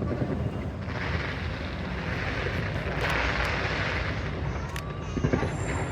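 Aerial fireworks going off: a continuous low rumble of bursts with a hissing crackle that swells about a second in and again about three seconds in, and a sharper bang near the end.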